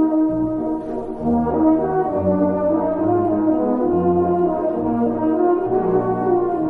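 Background music: a waltz played on brass, with sustained horn-like melody notes over a bass line that changes note about every second.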